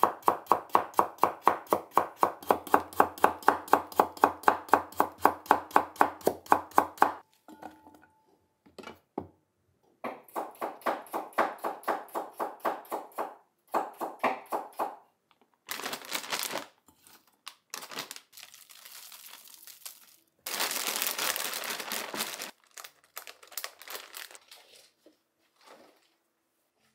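Kitchen knife slicing red radishes on a wooden cutting board: a quick, even run of cuts at about five a second for seven seconds, then two shorter runs of cuts. A few bursts of rushing noise follow about halfway through.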